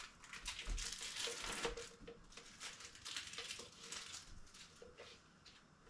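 Plastic wrappers of Kraft Singles cheese slices crinkling as the slices are peeled out. Irregular rustles and crackles, thinning out toward the end.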